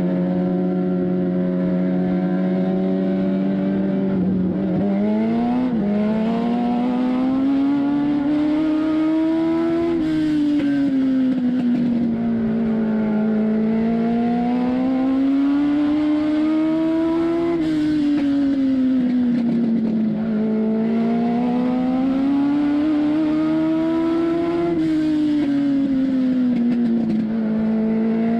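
Legend race car's Yamaha motorcycle engine, heard from inside the cockpit during a race. It holds a steady pitch for the first few seconds, then rises and falls in a repeating cycle about every seven or eight seconds: revving up along each straight and easing off through each turn of the oval.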